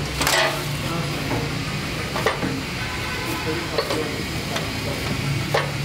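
A plastic bag of fish crinkling and rustling as it is handled on the pan of a mechanical shop scale, a few sharp rustles over a steady hiss and low hum.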